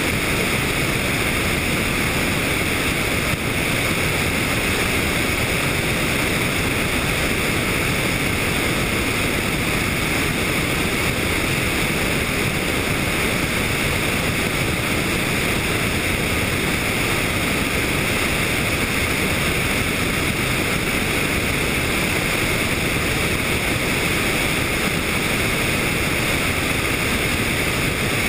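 Helicopter in flight: steady, even engine and rotor noise mixed with wind rushing over the microphone.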